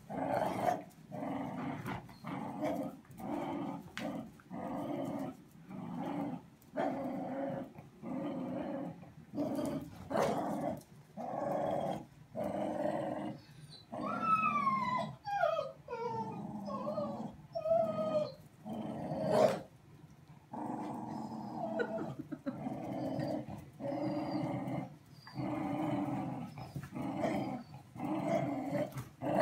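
Irish Terriers growling during a rope-toy tug-of-war, in short repeated bouts about once a second. About halfway through, a run of high, falling yelps comes through the growls.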